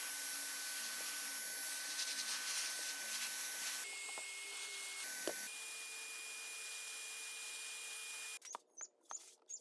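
Steady hiss with a thin whine from an electric paint spray gun's motor, its pitch shifting at several cuts. A couple of light knocks from the steel jack arms being handled come about four to five seconds in, and near the end the hiss drops away to faint clicks.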